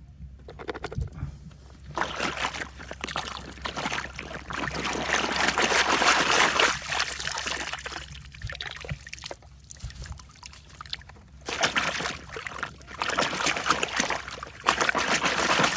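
Water pouring and sloshing over toy vehicles as they are washed, in two long spells with a quieter pause between.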